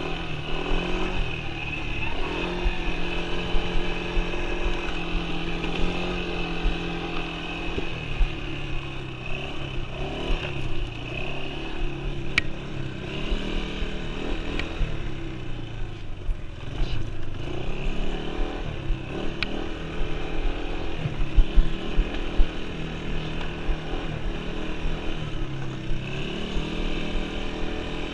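Yamaha Breeze 125 ATV's single-cylinder four-stroke engine running under way, its pitch rising and falling again and again as the throttle is opened and eased off. A few sharp ticks come through around the middle.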